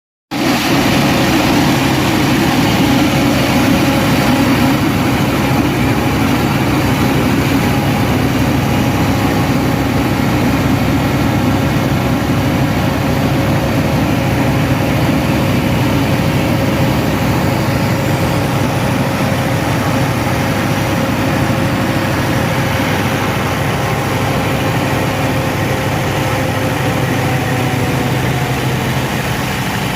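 Scania R560 XT truck's V8 diesel engine idling steadily after a repair.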